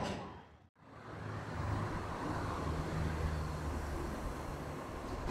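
A Kobe Municipal Subway train running slowly into a station platform: a steady low rumble of motors and wheels with a faint hum, starting after a brief gap about a second in.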